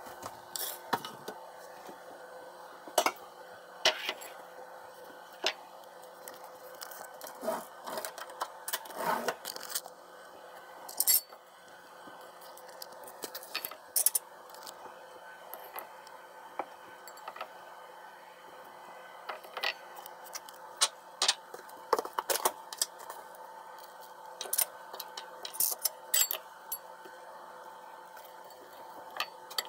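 Scattered clinks and clatters of kitchen utensils and dishes being handled at the counter, irregular and of varying loudness, over a steady low hum.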